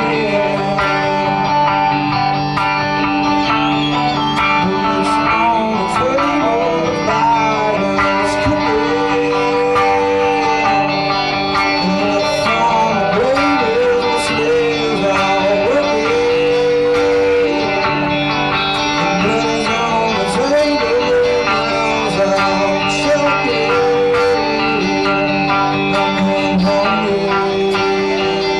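Rock band playing live on electric guitars: a lead line with repeated bent notes over held chords.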